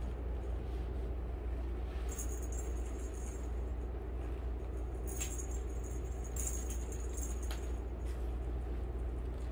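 A small jingling rattle, heard in three short bursts, over a steady low hum.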